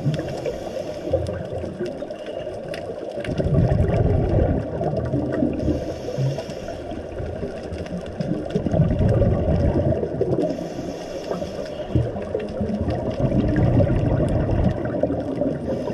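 Muffled underwater water noise, dull rushing and gurgling that swells and fades every few seconds. A short hiss comes back about every five seconds.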